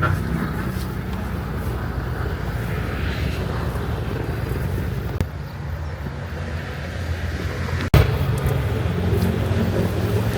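Steady low engine drone, briefly cutting out about eight seconds in.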